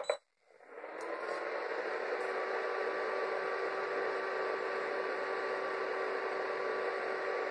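Flipkart SmartBuy induction cooktop switched on with a short button click, then its cooling fan starts about half a second later and runs with a steady whir and a faint steady tone as it heats a steel pot of water at the 1000 setting.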